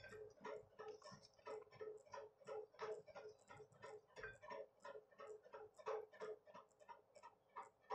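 Faint, regular ticking, about four ticks a second, in an otherwise quiet room.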